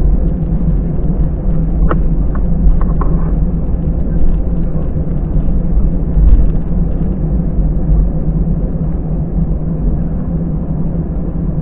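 Airliner cabin noise of a taxiing Airbus A320: a steady low rumble from the jet engines at taxi power and the airframe rolling over the taxiway, heard inside the cabin beside the wing.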